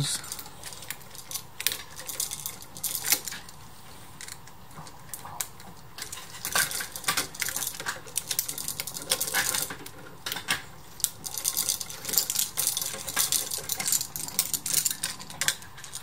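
Irregular light clicks and metallic taps: a screwdriver working the terminal screws of an old wall light switch and knocking against its wires, with a dog chewing on something in the background.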